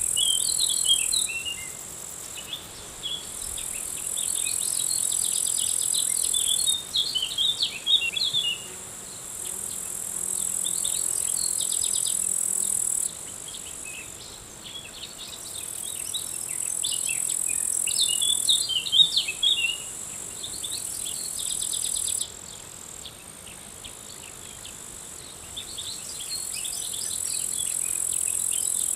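Nature soundscape of insects trilling at a high pitch in steady stretches that start and stop abruptly every few seconds, with songbirds singing short, quick twittering phrases over it.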